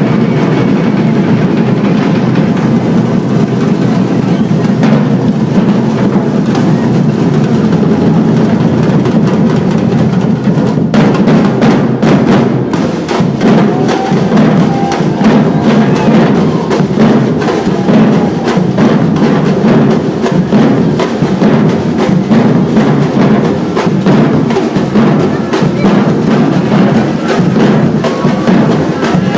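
A batucada-style percussion ensemble plays a driving rhythm on drums with sharp, clacking strokes over them. The rhythm shifts briefly about eleven seconds in.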